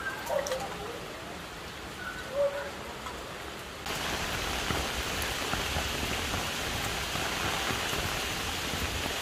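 Steady rain falling, its hiss stepping up sharply about four seconds in.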